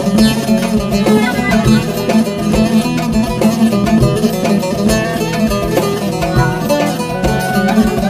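Instrumental introduction of an arabesk song: a plucked-string melody over a steady beat, with no singing yet.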